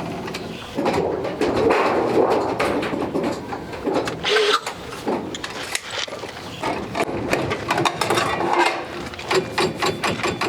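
Seamless gutter roll-forming machine running, feeding aluminium coil through its rollers to form a length of 6-inch gutter, with a steady mechanical whir and many short clicks and rattles, more of them in the second half.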